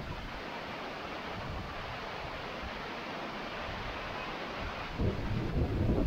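Waterfall and rocky stream rushing steadily. From about five seconds in, wind buffets the microphone in uneven low rumbling gusts.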